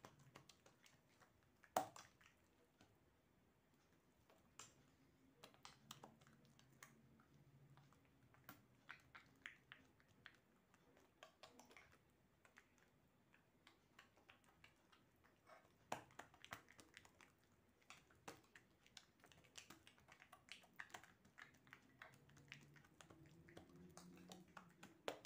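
Near silence with faint, irregular soft taps and squishes of oiled hands pressing and stretching msemen dough thin on a countertop.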